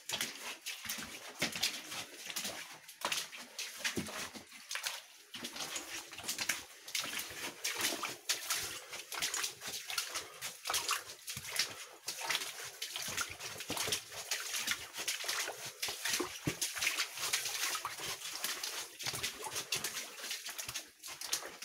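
Footsteps in waders splashing and sloshing through shallow water along a flooded stone-arched mine tunnel, stride after stride.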